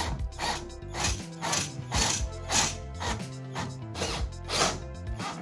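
Tool&Tool 21V cordless drill driving screws through a curtain rail into wood, with mechanical whirring and clicking. Background music with a steady beat plays over it.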